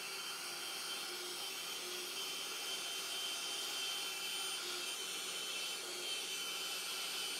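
Metal-cutting bandsaw running steadily as its blade cuts down through 5-inch stainless steel flat bar clamped upright in the vise, with a thin high tone over the running noise. The bar is cut on edge because it is too wide to fit the vise lying flat.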